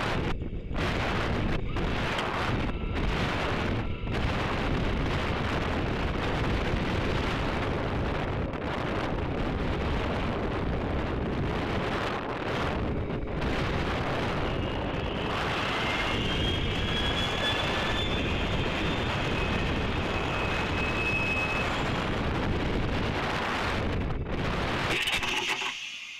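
Wind rushing over the rocket's onboard camera microphone as it descends under its main parachute, a steady noise. A faint high whistle joins in for several seconds midway, and near the end the rushing falls away as the rocket comes down on the ground.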